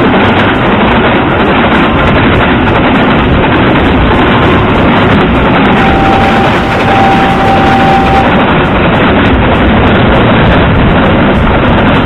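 Freight train passing close by: a loud, steady mix of wheels and running noise, with wind buffeting the microphone.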